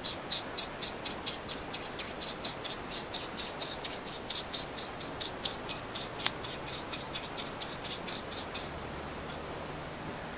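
Small bristle brush dabbing and scrubbing boiled linseed oil onto a wooden rifle stock and into its slots, a quick rhythm of short scratchy ticks at about three a second, with one sharper click about six seconds in.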